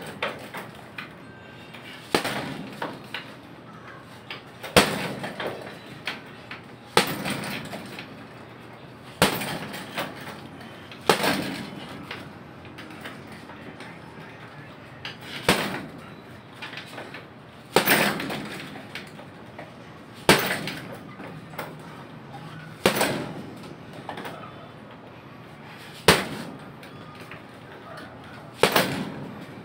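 Boxing gloves punching a hanging heavy bag: a sharp thud every two seconds or so, about a dozen blows, each trailing off for about a second.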